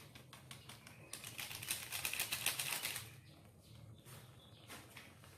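A spatula stirring and scraping in a non-stick pan of simmering fish curry. A dense run of rapid clicks lasts about two seconds, starting about a second in, then thins to quieter scattered clicks.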